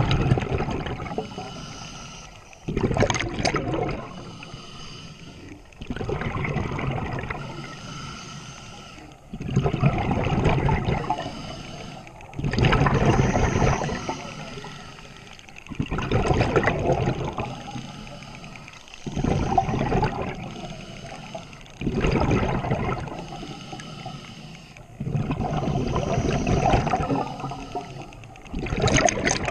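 Scuba diver breathing through a regulator underwater: a bubbling rush of exhaled bubbles from the regulator exhaust about every three seconds, with quieter hiss between breaths.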